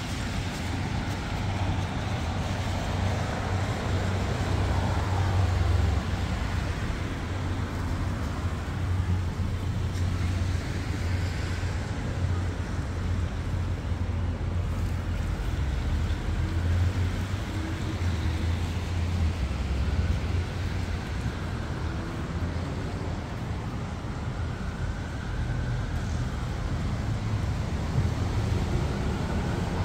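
City street traffic: a steady low rumble with vehicles passing every few seconds.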